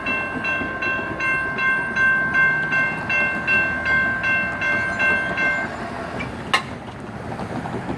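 Electronic railroad crossing bells dinging about two and a half times a second, then stopping suddenly a little over halfway through. About a second later the Safetran gate mechanism gives one sharp tick as the gate arm comes up clear.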